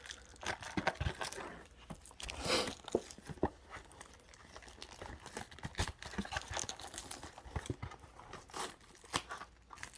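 Foil trading-card booster pack wrappers crinkling and tearing while cards are handled: irregular rustles and small clicks, with a longer crinkle about two and a half seconds in.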